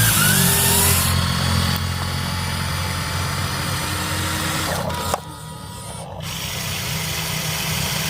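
Small electric motors of a radio-controlled excavator and dump truck running, a steady buzzing hum with a faint whine. About five seconds in there is a click and the sound briefly drops before picking up again.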